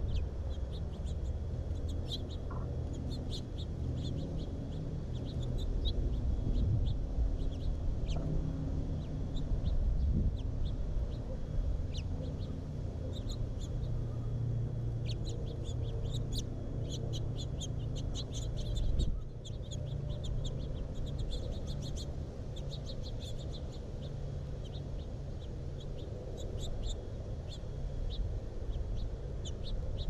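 Small birds chirping in quick runs of short, high calls, over a low scratching and rumbling noise from a bird's feet on the camera's tripod.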